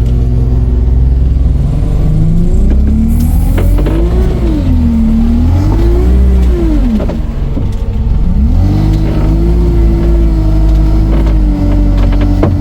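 Engine of a 'Veter' all-terrain vehicle running under load, its revs rising and falling twice, then climbing again about eight and a half seconds in and holding steady.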